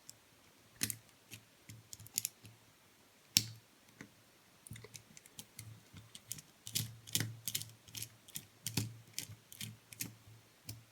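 Light, irregular clicks and scrapes of a screwdriver working a small flathead screw out of a lock cylinder, sparse at first and coming several a second from about halfway.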